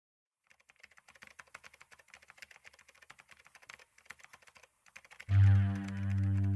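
Rapid typing on a computer keyboard, a quick irregular run of key clicks. About five seconds in, a loud low synthesizer note from an electronic keyboard starts and is held.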